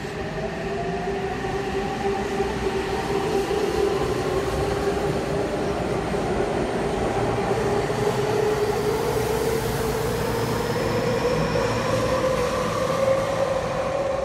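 Electric commuter train pulling out of the station, its motor whine slowly rising in pitch as it gathers speed, over the rumble of wheels on the rails.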